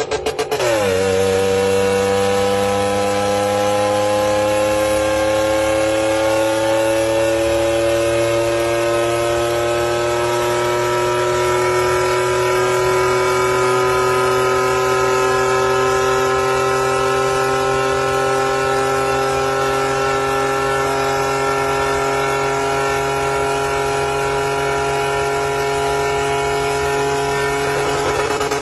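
A continuous engine-like drone whose pitch creeps slowly upward throughout, over a steady lower hum.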